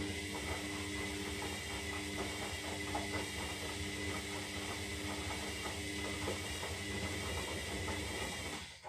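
Zanussi Lindo 300 washing machine's motor running mid-cycle: a steady hum and high whine with a light rattle. It cuts off near the end with a short click.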